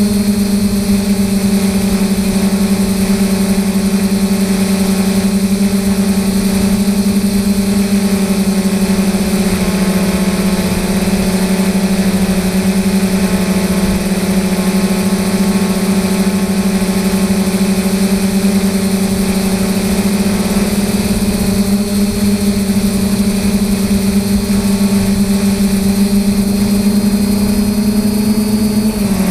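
Quadcopter's DJI 2212 brushless motors and 9450 propellers humming steadily in flight, heard close up from the camera mounted on the drone, with a low rumbling noise underneath. The pitch dips slightly about ten seconds in and shifts briefly near the end.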